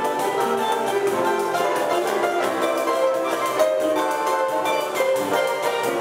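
A choro ensemble playing live: a ten-string bandolim picks quick, bright melody notes over flute and rhythmic accompaniment with a steady beat.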